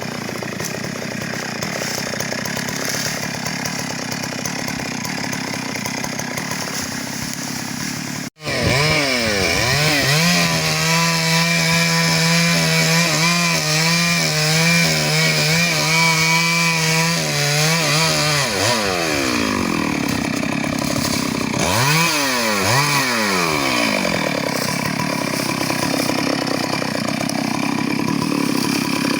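Two-stroke chainsaw running in teak felling. It runs steadily, breaks off for an instant about a third of the way in, then holds a high even engine note for several seconds, drops in pitch, and is revved up and down twice.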